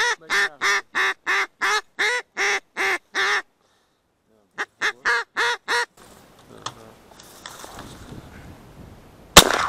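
Hen-mallard quacking: a fast, even run of about three quacks a second, a short pause, then a shorter run. Near the end, a single loud shotgun shot.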